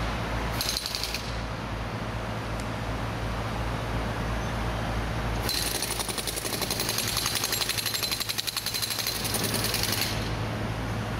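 Demolition excavator at work: its diesel engine drones steadily, and for about four seconds in the second half comes a rapid, even mechanical hammering. A short clatter sounds about a second in.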